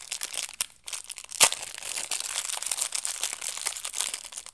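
Thin clear plastic self-seal bag crinkling and rustling as fingers work it open. One sharp snap about a second and a half in is the loudest sound.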